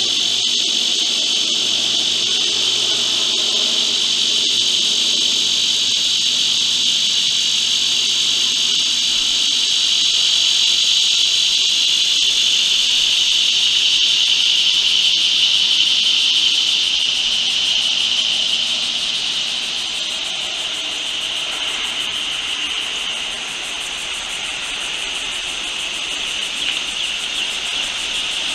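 Steady chorus of insects buzzing high and continuous, easing somewhat past the middle.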